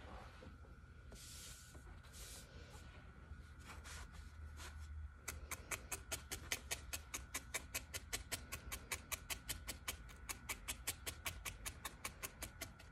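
A felting needle stabbing rapidly and evenly into wool roving on a foam pad: a steady run of short clicks, about five a second, starting about five seconds in. Before that, soft rustling of the wool being handled and tucked.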